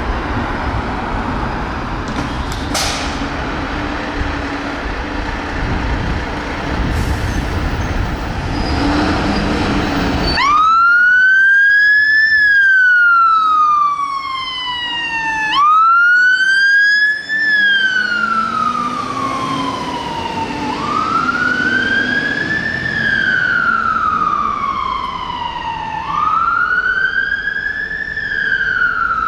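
Mercedes-Benz Atego fire engine's siren switched on about ten seconds in as it turns out: a slow two-tone-free wail, each cycle rising quickly and falling back over about five seconds. Before that, only street traffic noise.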